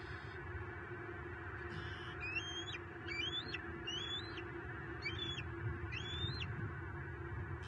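A bird calling five times, about once a second, each call a short, clear note that rises in pitch with a step partway up, over a steady background hiss and hum.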